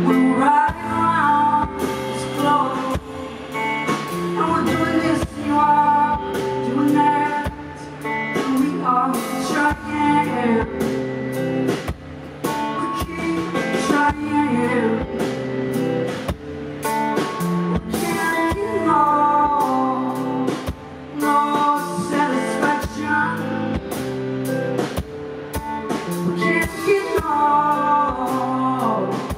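Live band music: a steady drum-kit beat, electric guitar and keyboard, with a woman singing at the microphone over it.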